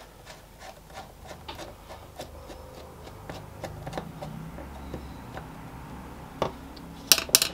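Small irregular clicks and scrapes of a screwdriver turning in the steel body of a mini lathe chuck, screwing down the guide pins over the gears. A quick cluster of louder metallic clicks comes near the end.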